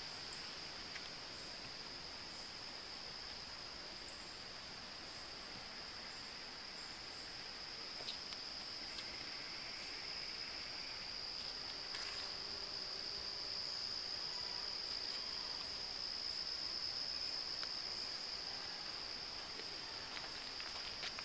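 Steady, high-pitched chorus of insects in summer woods, one continuous shrill note that swells slightly midway, with a few faint ticks.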